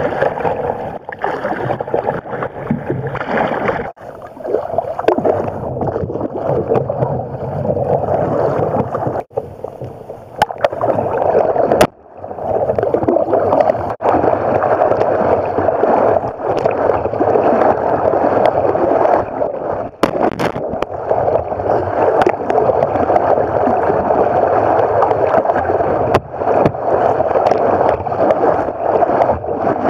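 Kayak paddle strokes splashing and water rushing close to a deck-mounted camera, with spray landing on it. A steady, muffled watery wash that breaks off sharply a few times.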